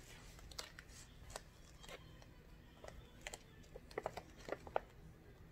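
Faint, irregular light clicks and crinkles of a sheet of heat transfer vinyl on its plastic transfer tape being handled and nudged into place on a fabric face mask. The clicks come more often in the second half.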